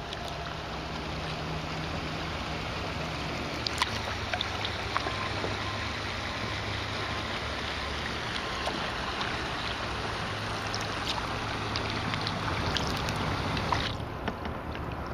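A kayak being paddled on calm water: a steady rush of water along the hull, with small splashes and drips from the paddle. The hiss thins out near the end.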